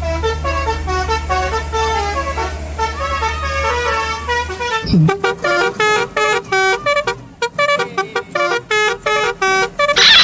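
Telolet multi-tone bus horn (Basuri type) playing a quick tune of stepped horn notes. A low steady hum runs under the tune for about the first half, then the notes come short and separate.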